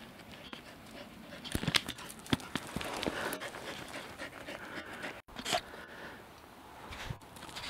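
Heavy panting breaths mixed with scattered crunching steps on a stony path. The sound breaks off for an instant about five seconds in.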